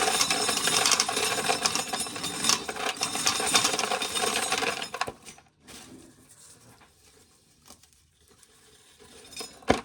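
Corn sheller running with an ear of corn in it, a dense clattering rattle of kernels being stripped from the cob, which stops suddenly about five seconds in; after that, only a few faint clicks and a short knock.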